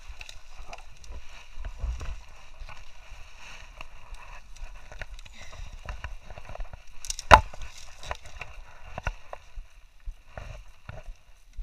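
Footsteps pushing through dry brush and dead branches: twigs and leaf litter crackling and scraping in an irregular patter, with one sharp, loud crack a little past halfway.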